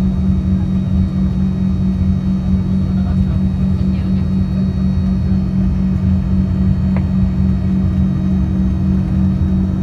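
Steady cabin drone of an Embraer 145 on the ground, its twin rear-mounted Rolls-Royce AE 3007 turbofans running at idle, with a strong low hum and rumble. A faint tick about seven seconds in.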